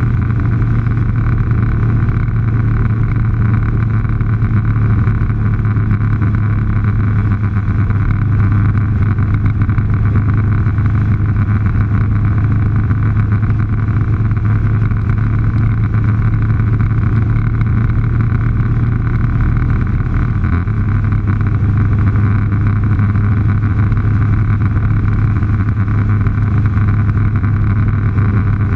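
Vehicle engine running at a steady cruise, a loud even low drone mixed with wind and tyre noise; the drone's pitch shifts slightly about two-thirds of the way through.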